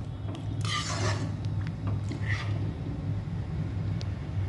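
Metal spoon stirring chicken curry in a steel kadai: a few short scrapes against the pan and light clinks, over a steady low hum.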